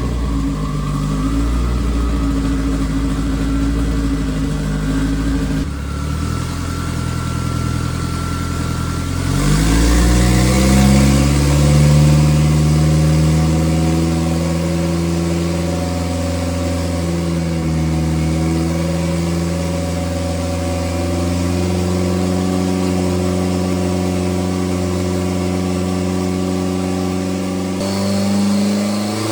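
Race car engine running on a chassis dyno during tuning runs. The revs climb over about two seconds roughly a third of the way in, then hold high and fairly steady.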